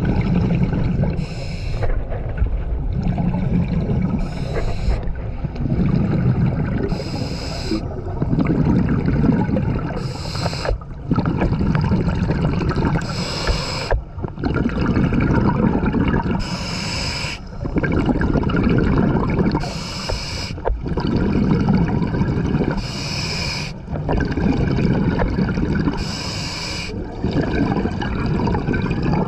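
Scuba diver breathing through a regulator underwater: a short high hiss on each inhalation, then the low bubbling rumble of exhaled air, repeating about once every three seconds.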